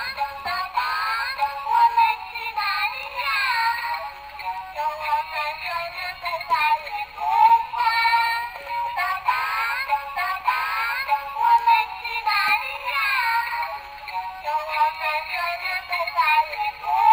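Singing blue pig rattle, a battery-powered baby toy, playing a sung children's song through its small speaker. The sound is thin and tinny, with no low end.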